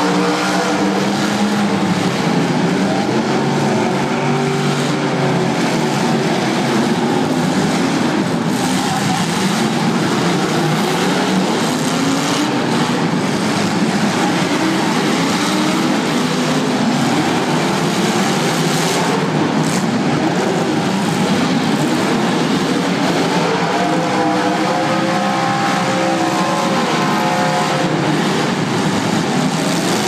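Several demolition derby car engines revving hard at once, pitches rising and falling over one another, with a couple of short crashes about eight and nineteen seconds in, in an indoor arena.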